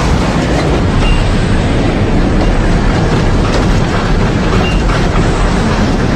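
Storm wind roaring loudly and steadily, buffeting the microphone.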